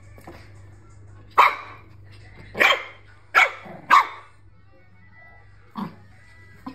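Shih Tzu puppy barking in excitement while playing with a balloon: four loud, sharp barks between about one and four seconds in, then two quieter ones near the end.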